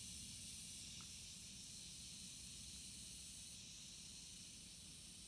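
Near silence: a faint steady hiss that drops almost to nothing near the end.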